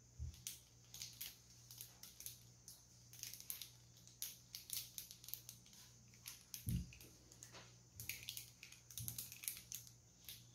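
Faint crinkling and rapid little clicks as a fidget toy and its plastic packaging are handled and opened, with a single soft knock about two-thirds of the way through.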